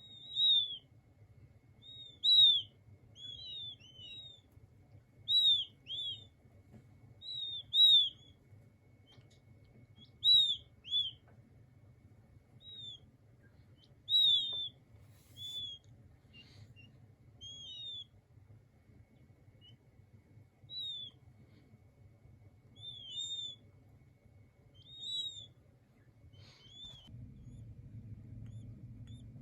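King quail chicks peeping: short, high, arched peeps, often in quick pairs, every second or two, growing sparser in the second half. A faint low hum runs underneath and gets louder near the end.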